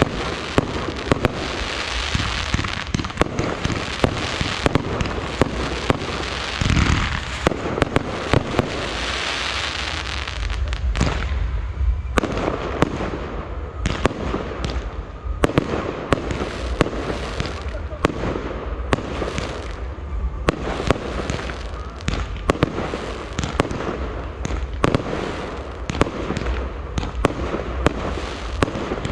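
Fireworks display: shells bursting with sharp bangs in quick succession, over a continuous crackle and hiss from the bursts.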